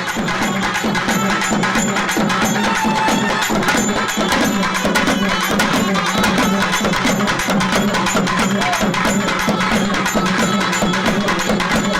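Traditional melam drum ensemble playing a fast, steady percussion rhythm, loud and unbroken, to accompany a dance.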